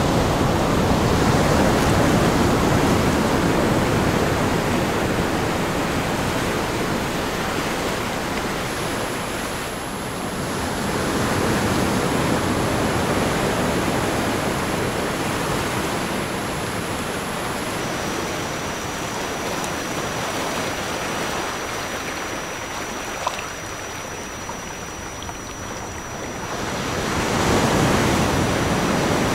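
Recorded ocean waves washing in and out, swelling and easing every several seconds. A thin, steady high-pitched tone is layered over them and drops to a lower pitch partway through. A single small click comes about three-quarters of the way in.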